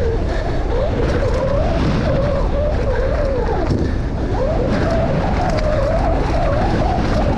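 Downhill mountain bike running fast down a dirt trail: wind buffeting the microphone, tyres on dirt and a clatter of the bike over bumps, with a buzzing tone that rises and falls.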